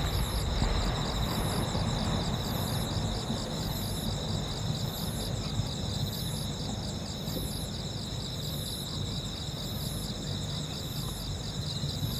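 Night insects, crickets trilling steadily in dense pulsing chirps, with a second, higher insect call repeating about once a second. Under them, a low rumble eases off in the first second: the fading tail of a firework shell's burst.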